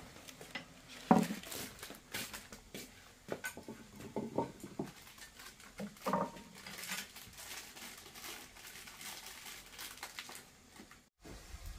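Scattered knocks and clinks of a bowl and chopsticks on a wooden bench and light shuffling movements as a man eats, with one louder knock about a second in.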